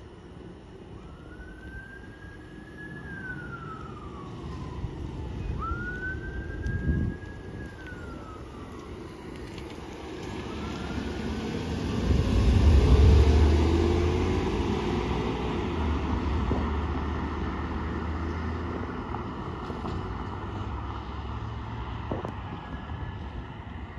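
Fire department emergency vehicle siren on a slow wail, rising and falling twice, then fainter. About twelve seconds in a fire department SUV drives close past with its engine and tyres loud, then easing into steady road noise.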